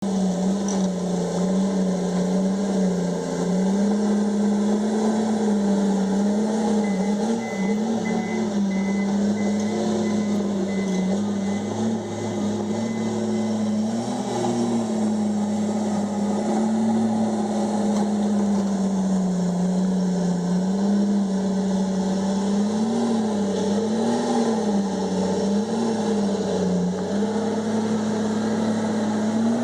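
Komatsu D51EX bulldozer's diesel engine running steadily under load, its pitch rising and falling slightly as the load changes. A faint run of quick high beeps sounds for a few seconds about a quarter of the way in.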